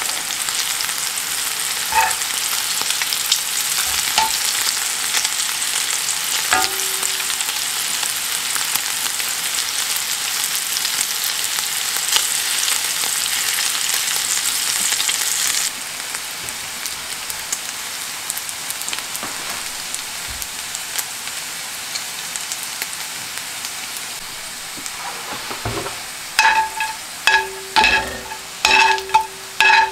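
Pancetta strips sizzling steadily as they fry in their rendered fat in a skillet, with a few scattered clicks. The sizzle drops in level about halfway through. Near the end a utensil clinks and scrapes against the pan again and again as the crisp, golden pieces are turned.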